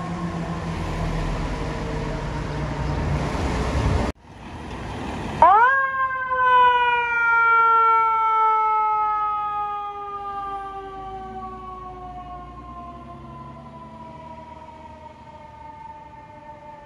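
Fire engine's diesel running with traffic as it pulls away, a siren winding down faintly behind it. Then a fire engine's mechanical siren winds up sharply about five seconds in and coasts slowly down in pitch, fading as the truck moves off.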